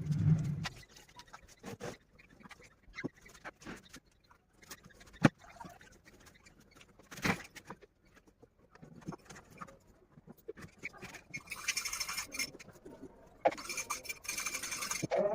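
Pet birds: a low coo at the very start, then scattered sharp taps and clicks, and a stretch of high-pitched chirping in the last few seconds.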